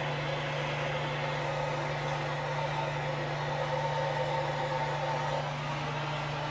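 Small hand-held propane torch burning with a steady hiss, heating a cast iron belt pulley hub, over a constant low hum.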